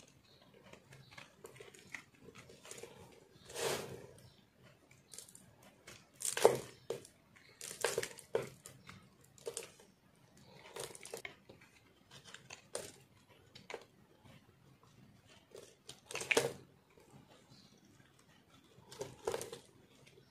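Re-molded soap made of pressed soap crumbs being carved with a knife and crushed by hand: irregular crunches and scrapes, a dozen or so, the loudest about six seconds in and again about sixteen seconds in.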